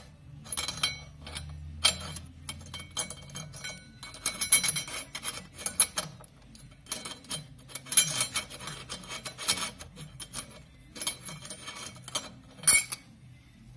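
Metal clutch parts of a Lambretta scooter handled by hand: the pressure plate is turned and pressed onto the clutch, giving irregular light metallic clicks, rubs and scrapes, with one sharper clack near the end.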